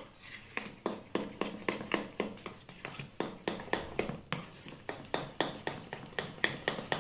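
Spoon stirring thick gram-flour (besan) dhokla batter in a stainless steel bowl. It clinks against the bowl about three times a second, the batter being beaten after the soda has gone in.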